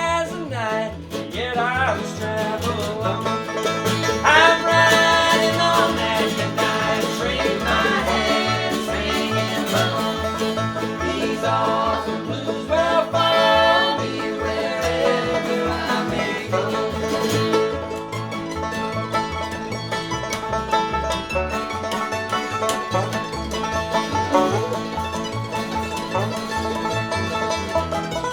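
Instrumental break of a country-style string-band song: plucked strings over a steady bass beat, with no singing.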